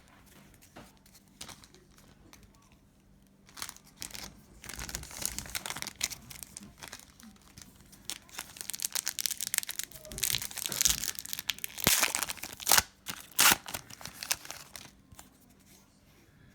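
A hockey card pack wrapper being torn open and crinkled by hand, in bursts of rustling with a few sharp crackles, the loudest near the end.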